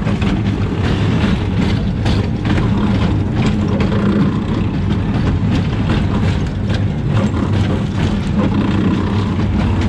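Funfair machinery running with a steady low engine-like hum, overlaid by irregular clattering and knocking.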